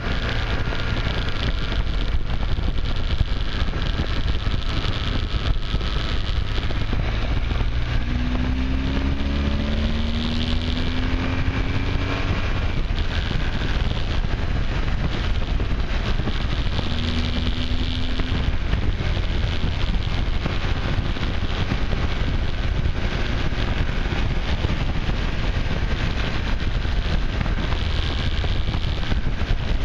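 A road vehicle's engine running at speed, under heavy wind rush and buffeting on the microphone. A rising engine tone is heard briefly about a third of the way in, as if accelerating, and again a little past halfway.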